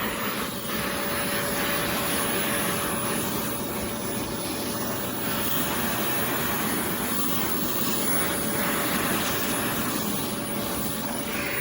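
Oreck Commercial XL Pro 5 compact canister vacuum running steadily: a constant motor whine over the rush of air through the suction.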